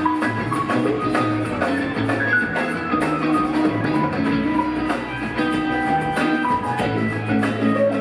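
Live band playing an instrumental rock jam: an electric lead guitar runs melodic lines over steady bass and keys, with light drums and percussion underneath.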